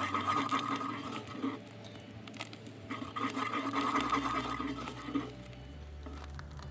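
Wooden spoon stirring thick, bubbling beef stew in a pot, in two spells of about one and a half and two seconds, as a Bisquick-and-water thickener works in.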